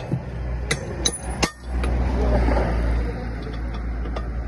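Sharp metallic clinks on a steel tractor wheel rim as a tyre is worked off it: three in quick succession in the first second and a half and one more near the end, with a low rumble swelling underneath in the middle.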